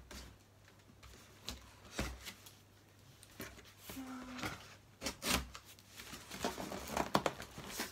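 Scissors cutting through the packing tape and cardboard of a large parcel: irregular snips, scrapes and cardboard rustles.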